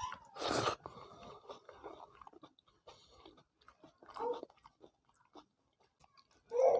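Close-up chewing of a mouthful of rice with curry and dal: soft wet mouth sounds and small lip smacks, with two louder bursts, about half a second in and about four seconds in.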